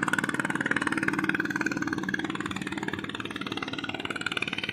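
A boat engine running steadily with a fast, even beat, easing off slightly in the second half.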